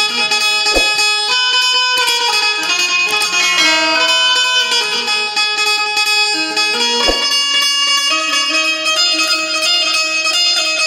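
Indian banjo (bulbul tarang), a keyed zither, playing a folk-song melody: strings plucked while the keys are pressed to change the notes. A brief low knock sounds about a second in and again about seven seconds in.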